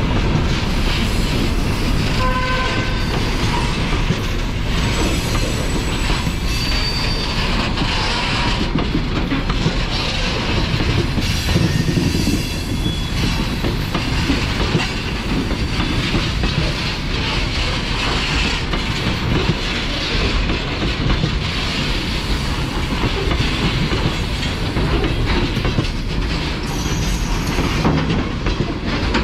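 Freight train of open-top gondola wagons rolling past at close range: a continuous rumble and clatter of wheels over the rails, with a few brief high squeals from the wheels.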